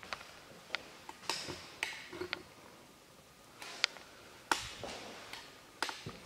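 Footsteps on a tiled floor: irregular light taps and clicks, about a dozen, with a louder one a little before the middle and another just past it.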